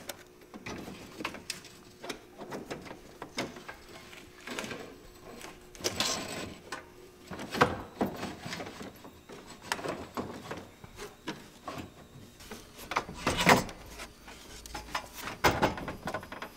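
A car radiator with an aluminium core and black plastic end tanks being lowered and worked into place in an engine bay: irregular knocks, clunks and scrapes of plastic and metal against surrounding parts, with the loudest knock about thirteen and a half seconds in.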